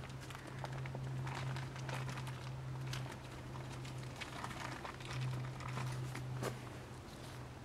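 Tarp fabric rustling and crinkling as it is handled, in short scattered rustles and clicks over a steady low hum.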